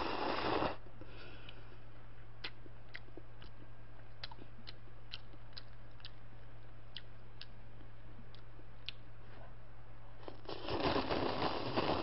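A person slurping Chapagetti instant jjajang noodles straight from the cup, a short slurp at the start and a longer one near the end, with soft chewing clicks in between.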